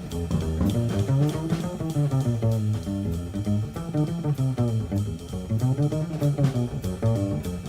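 Instrumental jazz passage with guitar and bass playing moving lines over light drums.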